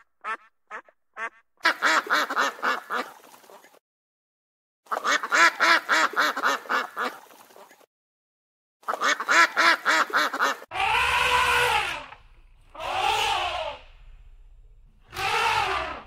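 Ducks quacking in three quick runs of short calls, each run fading off. About two-thirds of the way in come three longer, louder drawn-out calls with a low rumble beneath them.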